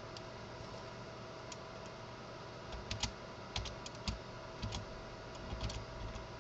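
Computer keyboard typing: a quick run of separate key clicks, starting about three seconds in and going on to near the end.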